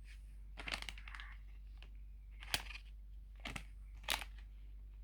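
Packaging being handled in a series of short crinkling, rustling crackles, about four bursts.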